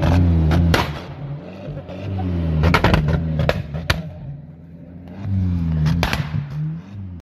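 An off-road 4x4 SUV's engine revving in three surges, rising and falling in pitch, as its wheels spin in deep mud. Sharp cracks and snaps are scattered through it, thickest in the middle.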